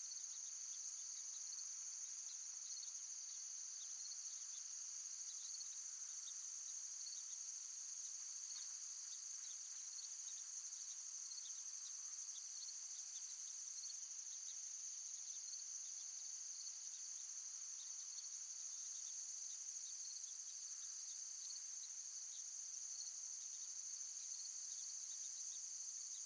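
Faint, steady chorus of crickets, a high continuous trill with small chirps scattered through it; the highest strand of the trill stops about halfway through.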